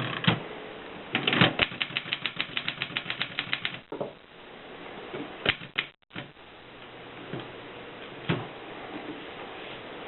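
Mercedes typewriter mechanism clicking: a single strike, then a rapid even run of clicks, about eight a second for some two and a half seconds, followed by a few scattered single clicks.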